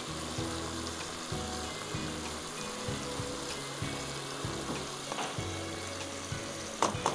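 Chicken pieces in stock cooking in a non-stick pan on a gas hob, with a steady sizzle. A utensil knocks sharply against the pan a few times near the end.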